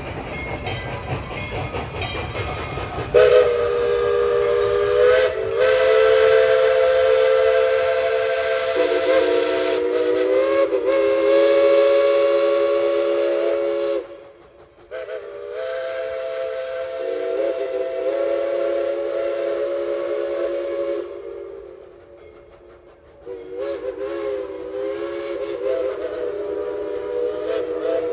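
Chime steam whistle of Tweetsie Railroad's steam locomotive No. 12, blown as the train pulls out. After a few seconds of low rumble it sounds a chord of several notes in long blasts, with a short break about halfway and a longer gap near the end, the notes wavering as each blast starts.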